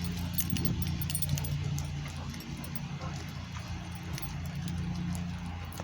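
Light metallic jingling of a dog's collar tags as he walks, over a steady low hum.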